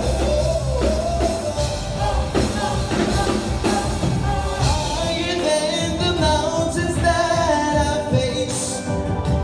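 A song with a sung vocal line over a steady beat and bass.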